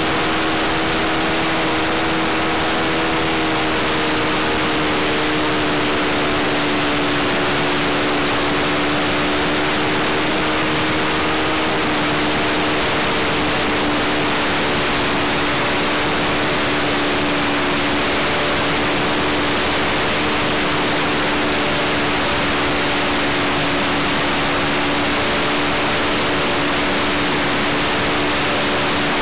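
Onboard sound of a Great Planes Little Toni model plane in flight: loud, steady wind rush over the airframe and microphone, with the steady note of its O.S. 95V model engine still running underneath, sagging slightly in pitch.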